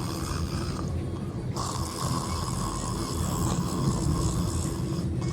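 A sleeping passenger snoring inside a car, over the car's steady cabin noise.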